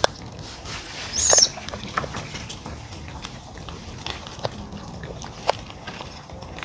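Macaque monkeys close to the microphone: scattered light clicks and taps, with one short high squeak about a second in.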